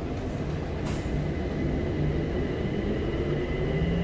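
BTS Skytrain electric train running along the track: a steady rumble of wheels on rail with a thin, steady high whine, and a low motor hum that climbs slightly near the end.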